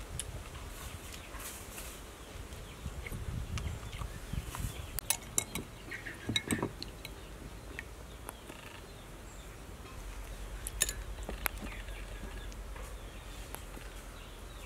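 Metal spoon clinking against a ceramic soup bowl while eating, a few light, sharp clinks spread through.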